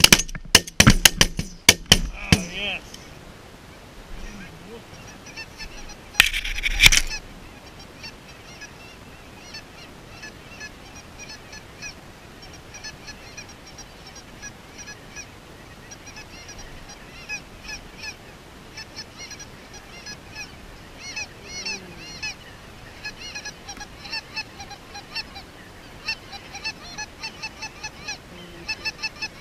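A flock of geese honking overhead, many birds calling at once, with the calls growing busier over the last third. In the first two seconds there are several sharp, loud knocks, and about six seconds in there is a brief, loud burst of noise.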